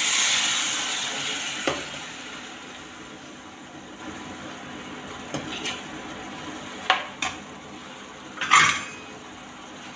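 Water poured into a pan of hot frying masala hisses and sizzles at once, then dies down over a couple of seconds. A metal slotted spoon then stirs and knocks against the pan several times, the loudest knock near the end.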